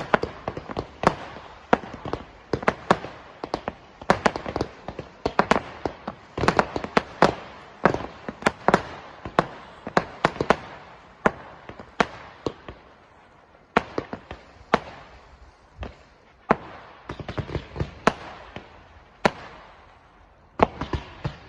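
Low-noise display fireworks going off in a fast string of sharp pops and crackles. The pops come thick for about the first ten seconds, then thin out to scattered single reports, with a last small cluster near the end.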